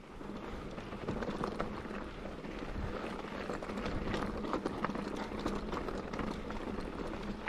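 Mountain bike rolling down a rocky trail: tyres crunching over loose stones and the bike rattling, with a constant patter of small knocks and clicks.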